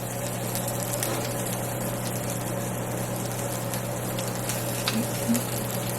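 Steady rushing noise with a low hum underneath, cut off suddenly at the end.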